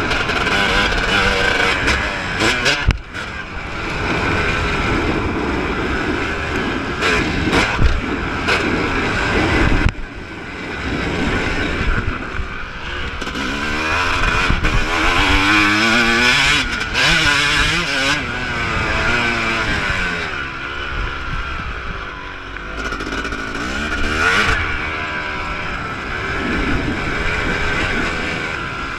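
Yamaha YZ250 two-stroke single-cylinder engine under riding, revving up and down over and over as the rider works the throttle through the gears, with the throttle briefly shut about three and ten seconds in. Wind rushes over the microphone, and sharp knocks come from the bike over the bumps.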